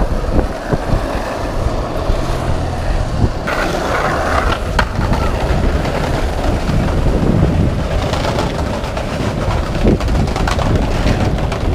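Skateboard wheels rolling over street asphalt close to the microphone, a loud steady rumble with wind buffeting the mic. A sharp click is heard about five seconds in.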